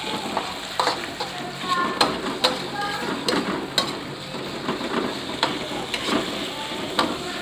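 Ground spice paste and a little water sizzling in hot oil in a frying pan while it is stirred, with frequent sharp clicks and scrapes of the stirring utensil against the pan.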